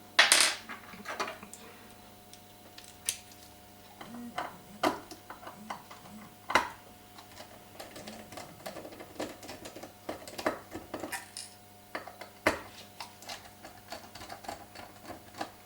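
Small Torx screwdriver and tiny screws clicking and scraping against the metal parts of an Apple TV 4's case as its screws are undone and set down: irregular light clicks, with a louder knock about half a second in.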